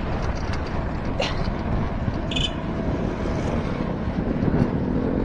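Steady rumble of wind and road noise, with a motor vehicle's engine rising in pitch over the last second or so.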